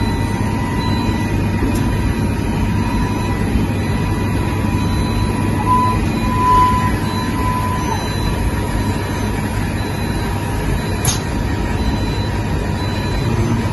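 Steady hum and rumble of automated battery circuit-board soldering machinery on a factory floor, with a thin steady whine running through it. A single sharp click sounds about eleven seconds in.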